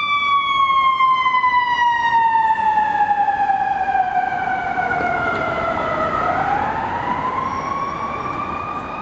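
A siren wailing: one tone slowly falls in pitch for about six seconds, then rises again near the end.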